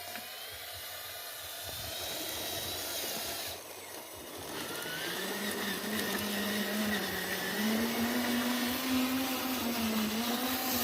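A small electric motor whining steadily, as on a radio-controlled model. It eases off briefly about four seconds in, then picks up again with its pitch wavering slightly.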